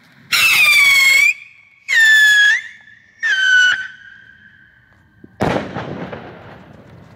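Small three-stage whistling rocket: three loud whistles, each under a second long and separated by short gaps, as it climbs, then one sharp bang about five and a half seconds in as it bursts into its star bouquet, the bang dying away over the next second or two.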